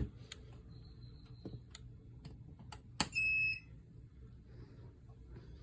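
Ultrasonic cleaner's control panel giving a single high electronic beep, a little over half a second long, right after a button click about three seconds in. Light clicks of handling come before it.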